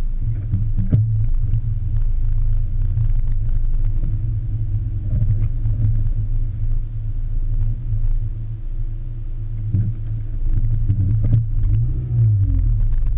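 Muffled low rumble of a car driving slowly, heard through a sealed camera waterproof housing that blocks most of the sound, with scattered light clicks and knocks.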